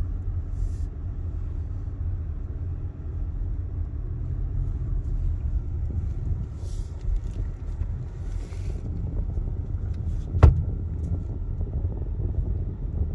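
Car being driven, heard from inside the cabin: a steady low rumble of engine and tyres, with a single sharp knock about ten seconds in.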